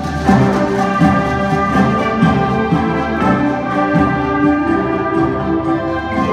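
Youth concert band playing, with brass and woodwinds together: French horns, clarinets and saxophones among them. The music moves through held chords, changing notes every fraction of a second.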